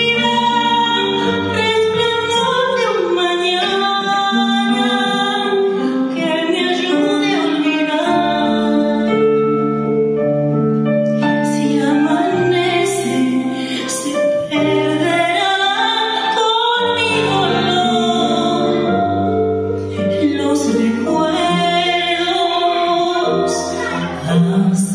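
A woman singing long, held notes into a microphone over instrumental accompaniment, heard live through a hall's loudspeakers.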